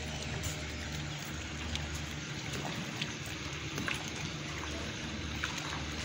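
Small waves lapping and trickling against a wooden jetty, with scattered light splashes over a low steady hum.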